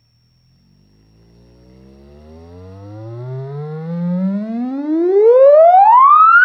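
Bare Sansui MAS-1500 woofer, out of its cabinet, playing a test-tone sweep in a free air test. The tone starts faint and low about half a second in, then rises steadily in pitch and grows much louder.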